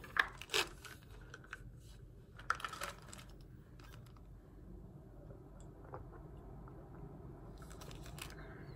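A few sharp clicks and taps of small objects being handled in the first three seconds, then faint room tone.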